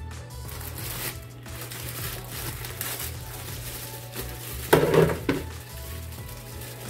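Plastic bag crinkling and rustling as it is torn open, with a loud burst about five seconds in as raw oxtail pieces tip from the bag into a plastic bowl. Background music plays underneath.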